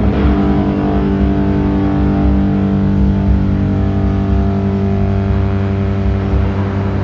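Doom metal band's heavily distorted guitars and bass striking a new chord at the start and holding it as a long, steady, sustained drone.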